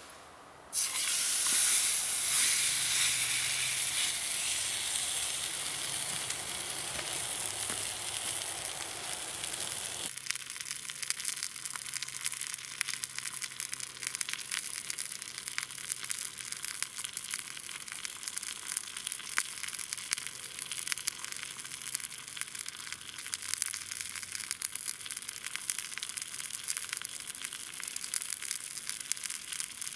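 Food frying in a hot pan, a steady sizzle full of fine crackles that starts suddenly about a second in and turns thinner about ten seconds in.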